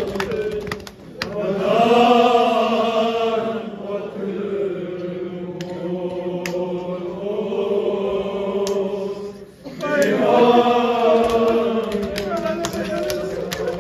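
A man chanting a nauha, a Shia mourning lament, in long drawn-out held lines, with men around him joining in. The chant breaks for breath about a second in and again near ten seconds, then starts the next line.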